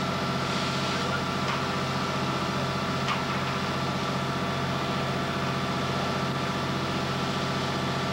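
Fire apparatus diesel engine running steadily, an even low drone with hiss over it, with one short sharp click about three seconds in.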